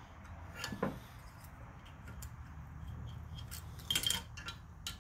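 Hand tools clinking lightly against the valve rockers during a valve-lash adjustment: scattered small metallic clicks and taps, with a short clatter about a second in and the loudest one about four seconds in.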